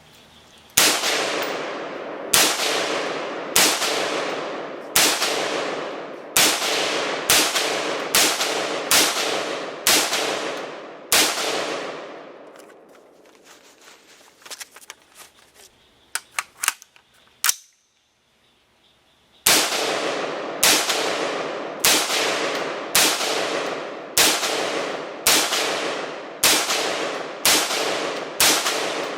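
Rifle fired shot after shot in a rapid-fire 'Mad Minute' string, each shot ringing out with a long echo tail. About a dozen shots come roughly one a second. Then a pause of several seconds with a few light clicks, and a second, faster string of shots near the end.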